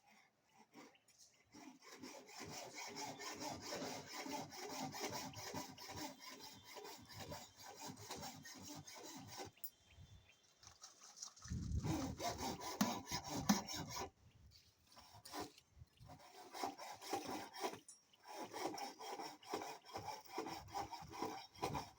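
Rapid, rough scraping strokes of a hand tool rubbing against a hard surface, stopping briefly a few times, with a louder, deeper stretch about halfway through.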